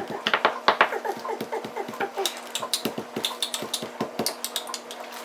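Kitchen utensils and dishes clattering in quick, irregular knocks and clicks, with a steady low hum underneath.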